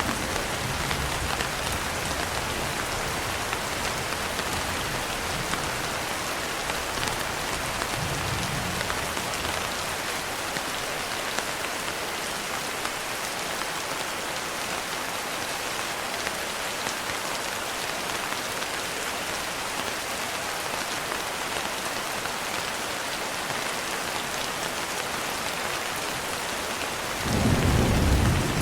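Steady rain falling as a continuous hiss. Low rolls of thunder sound during the first several seconds, and a louder thunder rumble swells near the end.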